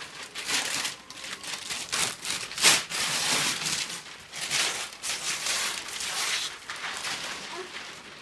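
Wrapping paper being torn and crumpled off a large gift box, in a series of irregular rips and rustles, with one loud rip about two and a half seconds in.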